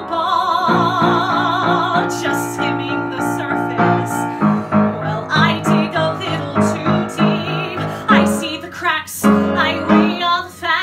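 A woman singing a musical-theatre ballad with piano accompaniment. She holds one long note with vibrato for the first couple of seconds, then sings on over repeated piano chords.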